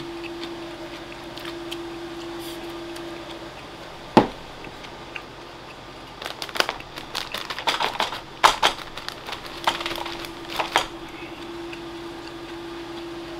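Mealtime handling noises at a wooden table: one sharp knock about four seconds in, then several seconds of quick clicks and rustling, including a paper tissue being handled. A steady low hum sits under it, dropping out in the middle.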